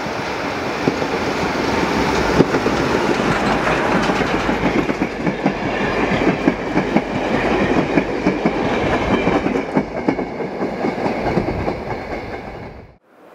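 Steam train, the Hv3 995 locomotive and its passenger coaches, passing close by. The wheels clack rapidly over the rail joints, the sound swells as the coaches go by and fades near the end.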